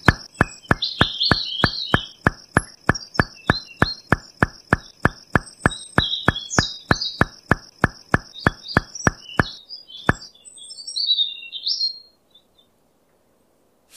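Birds chirping over a fast, even clicking of about four clicks a second, which stops a little over two-thirds of the way through.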